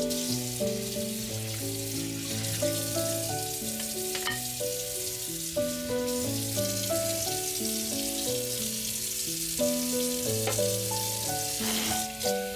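Food sizzling as it fries, a steady hiss, under background music of gently stepping held notes, with a couple of faint clicks.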